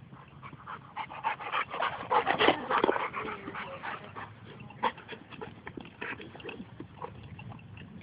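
Dogs playing together, with a dense run of quick, short breaths and noises that is loudest about two to three seconds in and then eases off.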